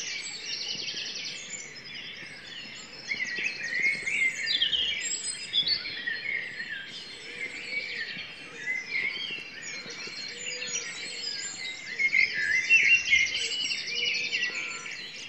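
Dawn chorus: several songbirds singing over one another, among them a blackbird and a robin. Fast, high trills come in near the start and again near the end.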